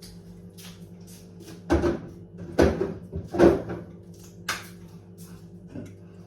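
A handful of knocks and clunks as things are handled at a fridge, loudest between about two and three and a half seconds in, over a steady low hum.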